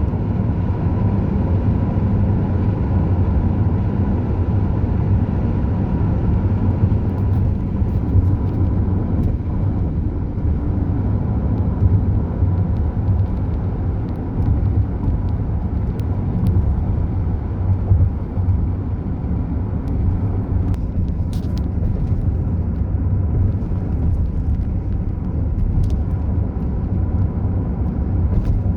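Car driving at highway speed: a steady low rumble of tyre and engine noise.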